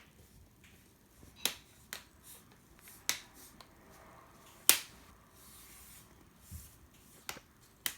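Laptop screen bezel being pressed into place, its plastic clips snapping in: about half a dozen sharp clicks at uneven intervals, the loudest a little past halfway.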